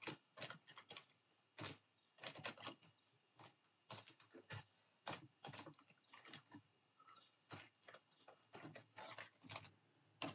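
Faint typing on a computer keyboard: irregular keystrokes, some in quick runs with short pauses between.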